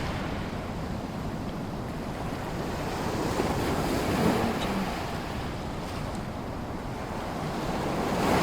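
Sea waves washing onto a shore: a steady surf that swells and ebbs, building up twice, about four seconds apart.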